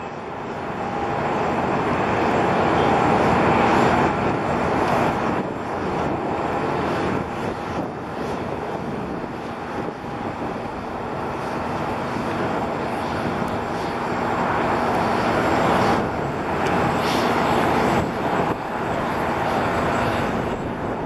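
Jet engines of a Boeing 767-300 airliner landing and rolling out on the runway: a steady, loud rushing noise with a faint whine in it, swelling about four seconds in and again later on.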